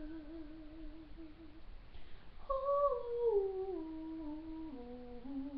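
A woman humming a wordless melody unaccompanied: a held, wavering note, then a slow line of notes stepping downward.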